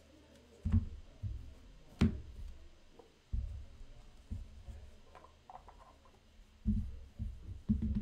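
Irregular dull thumps and knocks on a tabletop, about eight of them, one or two with a sharp click, from cards and decks being handled and set down on the table.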